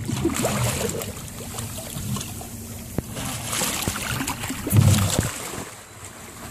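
A large tarpon thrashing and splashing at the boat's side, the water surging in irregular bursts. The loudest splash comes about five seconds in, with a thump.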